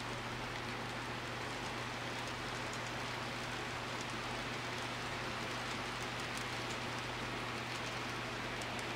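HO-scale model freight train of tank cars and double-stack container cars rolling along the track: a steady rolling hiss with faint light clicks, over a steady low hum.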